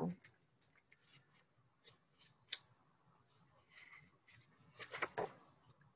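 Faint handling of a picture book's paper page as it is turned: small clicks and rustles, one sharper tick about two and a half seconds in, and a short swishing rustle around five seconds.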